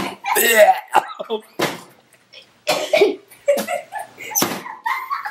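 A man coughing and gagging in a string of short, rough bursts with a few groans, his reaction to a foul-tasting trick jelly bean.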